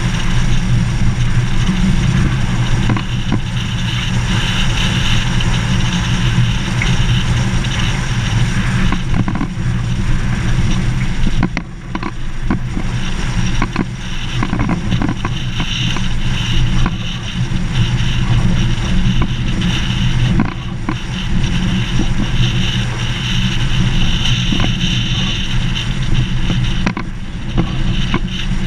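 A vehicle driving on a gravel dirt road: steady engine and tyre rumble, with scattered clicks and knocks from stones and rattles, briefly quieter about twelve seconds in.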